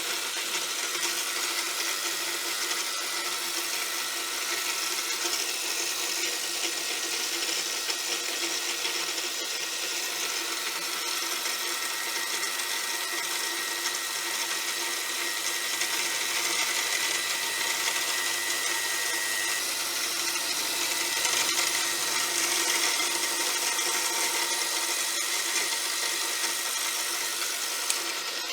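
A machine tool running steadily, cutting a hex onto a steel bar, with a dense, even hiss and whine of metal cutting.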